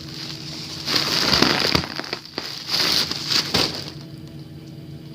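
Foil (mylar) helium balloon crinkling and crackling as it is squeezed and handled, loudest about a second in and dying down near the end.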